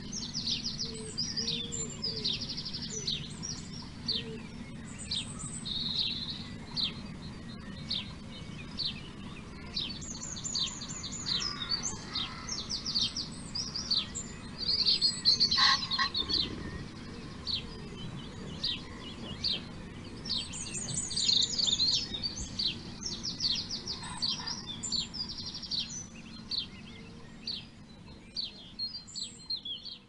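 Small birds chirping in quick twittering runs, high-pitched and coming in clusters, loudest about halfway through, over a steady low hum.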